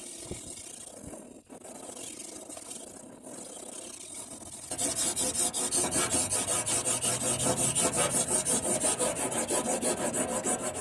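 Knife blade being sharpened on the Anystone guided sharpener: the stone scrapes along the edge in short back-and-forth scrubbing strokes. It starts as lighter rubbing, then about halfway in becomes a louder, fast, even rasping of several strokes a second.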